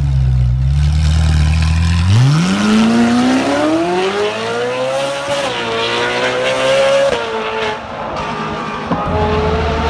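Sports car engine idling, then revved hard as the car pulls away. The pitch climbs steeply about two seconds in and keeps rising through two quick upshifts, then falls away as the car drives off.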